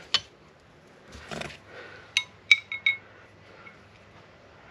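Light metallic clinks with a short ring, four in quick succession about two seconds in, after a soft rustle: metal shifter parts being handled and fitted.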